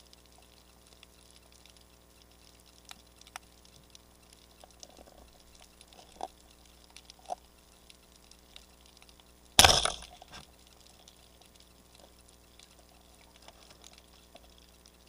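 Underwater ambience: faint scattered clicks and crackling, with a few sharper ticks and one short, loud burst of noise about two-thirds of the way through.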